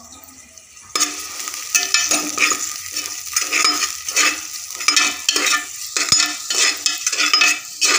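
Sliced onion, coriander leaves and whole spices sizzling in ghee in an aluminium pot while a spoon stirs and scrapes the pot bottom about twice a second, being sautéed. The frying starts about a second in.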